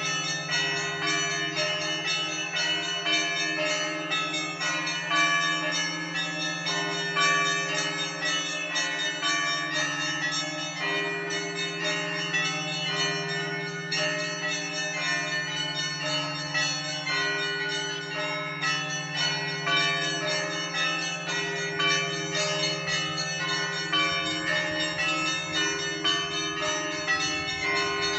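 Russian Orthodox cathedral bells rung in a continuous peal: rapid, unbroken strikes on many small bells over the steady hum of a large bell, with the mid-sized bells taking turns every second or two.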